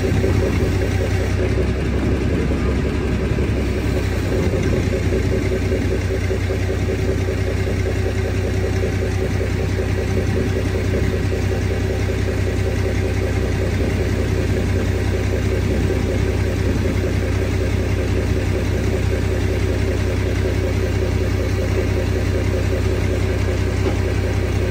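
Diesel engine of the crane truck running steadily at a fast idle as it powers the crane lifting the FV432's engine pack out.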